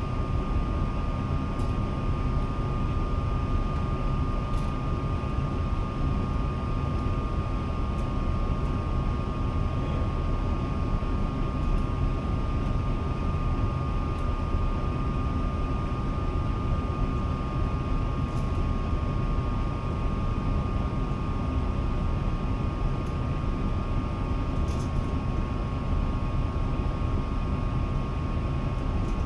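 A steady low machine drone with a constant thin whine on top, unchanging throughout, and a few faint light clicks.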